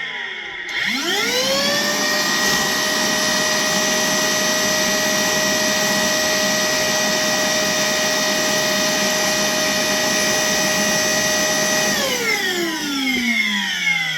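The brushless motor of a Worx WX031 cordless wet and dry vacuum switches on and spins up with a quickly rising whine. It then runs at a steady pitch over a rush of air as it sucks up water. About twelve seconds in it is switched off, and the whine falls as the motor winds down.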